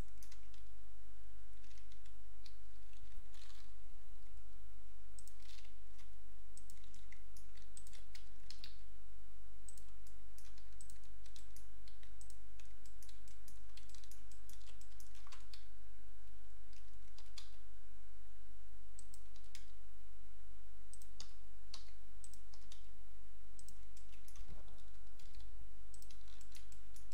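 Irregular clicks of a computer mouse and keyboard keys, with scroll-wheel ticks, over a steady low electrical hum.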